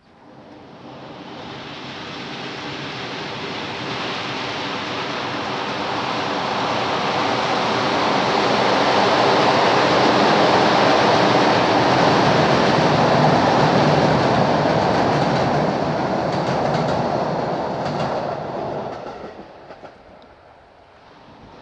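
Locomotive-hauled passenger train with double-deck coaches crossing a steel truss railway bridge: a rumble with wheel clatter that swells, is loudest around halfway, and fades away a couple of seconds before the end.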